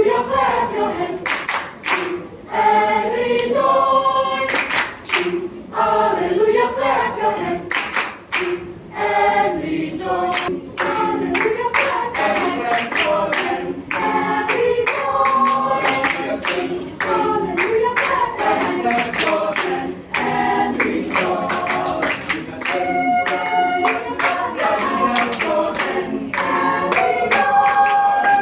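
Children's choir singing, with rapid rhythmic passages and long held notes near the end.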